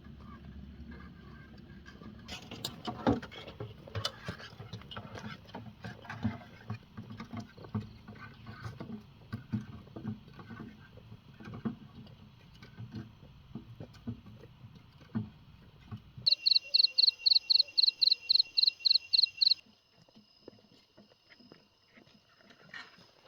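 Irregular knocks and clatter over a low hum, then a rapid run of about a dozen loud, high-pitched beeps, about four a second, lasting about three seconds.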